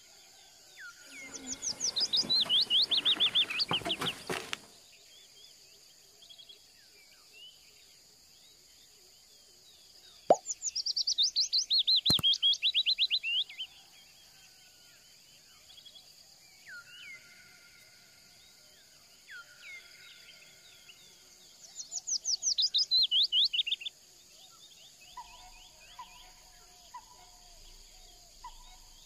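A songbird sings a fast trill that falls in pitch, three times about nine seconds apart. A sharp click sounds near the second song.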